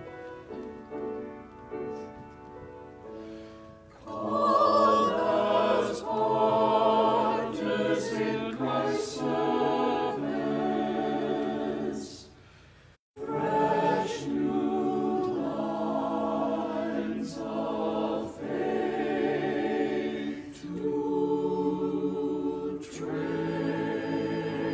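Church choir singing a hymn-style anthem with grand piano accompaniment. The music is softer for the first four seconds, then the choir sings out fully. There is a brief break in the sound about halfway through.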